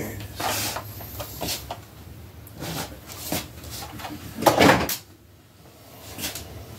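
A run of separate hard knocks and bumps from objects being handled and set down, the loudest a double knock about four and a half seconds in, followed by a quieter stretch.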